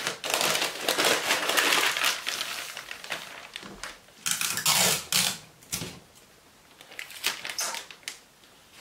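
White packing paper rustling and crinkling as it is folded and pressed around a large plate by hand: a long rustle at first, then shorter bursts with brief pauses between.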